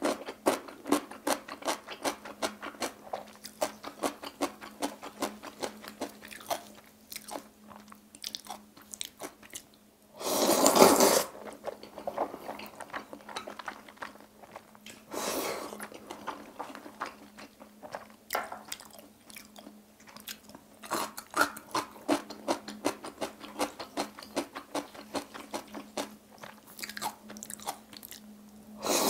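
Close-miked eating of jjajang instant black-bean noodles: chewing with many small wet mouth clicks. There is a loud noodle slurp about ten seconds in and a shorter one around fifteen seconds. A faint steady hum sits underneath.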